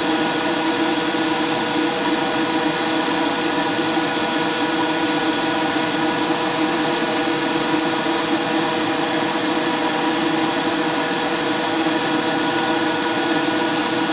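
Airbrush spraying paint with a steady hiss that stops briefly about two seconds in, for about three seconds in the middle, and again near the end, as the trigger is let go. Under it runs the steady hum of a small electric motor.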